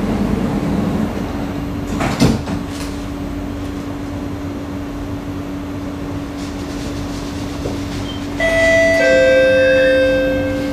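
Singapore MRT train interior: a steady hum while the train stands, a single thud about two seconds in as the sliding doors shut, then from about eight seconds the electric traction motors start a whine of several steady tones as the train pulls away.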